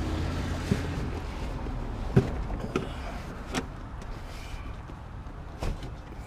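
Rear bench seat cushion of a BMW E39 being yanked free and pulled out of the car: rustling and scraping, with several knocks and thumps against the interior, the sharpest a little over two seconds in.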